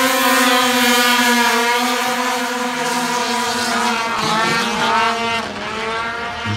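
A pack of Formula 500 racing snowmobiles with two-stroke engines, accelerating flat out off the start of the heat. A steady high engine whine holds for the first few seconds. Then several engine notes rise and fall against each other as the sleds pull away down the straight, and the sound grows somewhat quieter near the end.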